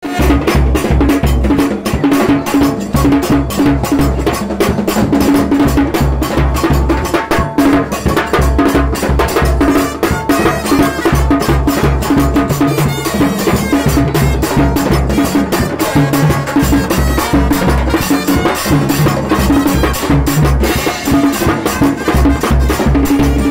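Ghanaian soloku music, driven by drums: a fast, steady beat of sharp clicking strikes over a repeating deep bass-drum pulse.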